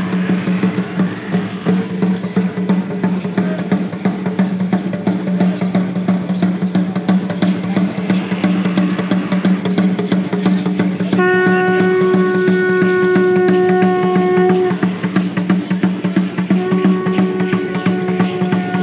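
Music with fast, dense drumming and drum rolls over a steady low tone. A held pitched note comes in about eleven seconds in, drops out, and returns near the end.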